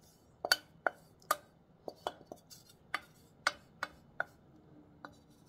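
A spoon scraping and knocking sauce out of a tipped saucepan: about a dozen short, sharp knocks at an uneven pace, roughly two or three a second.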